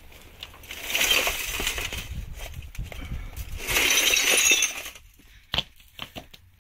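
Shattered picture-tube glass inside a smashed Akai CRT television crunching and clinking as a rock is ground and shoved around among the shards, in two spells, then a few single sharp clinks near the end.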